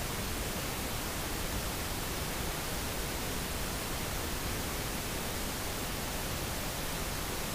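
Steady, even hiss of recording background noise, with no other sound standing out.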